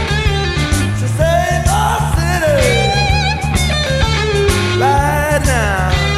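Rock music: electric guitar playing bending, sliding, wavering notes over a steady bass line and drum beat.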